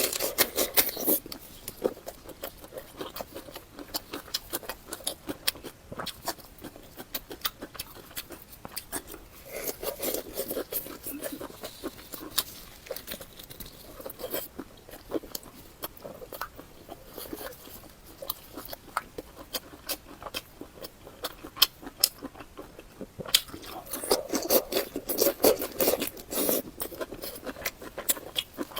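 Close-miked chewing and biting of someone eating, a steady run of small mouth clicks with heavier bouts of chewing about ten seconds in and again near the end.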